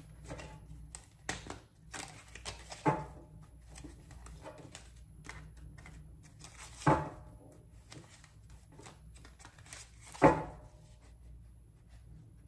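Tarot cards being shuffled and handled: a run of soft flicks and clicks, with three louder knocks about three, seven and ten seconds in.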